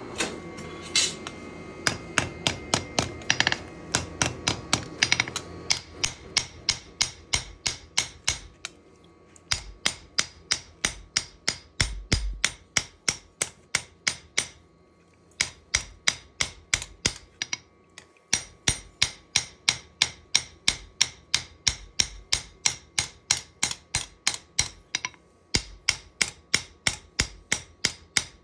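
Hand hammer striking a steel knife blade on an anvil in a quick, even rhythm of about three blows a second, each a sharp metallic ring, with a few short pauses. The blows shape and widen the blade during forging.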